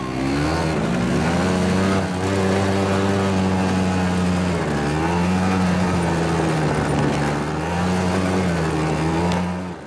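Quad bike (ATV) engine running while being ridden. Its pitch dips and picks up again as the throttle is eased and reopened: shortly after the start, near five seconds and near eight and a half seconds.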